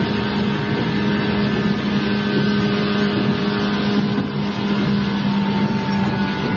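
Interior running noise of a 165-series electric multiple unit travelling at steady speed: an even rumble from the wheels and running gear with a low, steady hum from the traction motors and gears.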